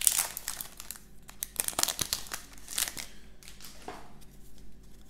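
Foil Pokémon booster pack wrapper crinkling and tearing as it is opened and handled, in dense bursts over the first three seconds that then thin out.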